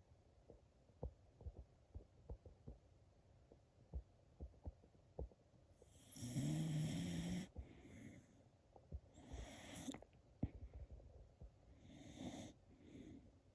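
Shiba Inu snoring in deep sleep: a loud snore with a low, steady pitch about six seconds in, then two weaker snores a few seconds apart. Before the first snore, only faint irregular clicks.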